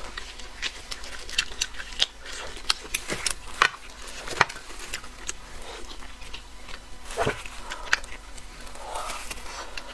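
Close-miked chewing and wet mouth smacks of a person eating bone marrow, a string of short, sharp clicks at irregular intervals.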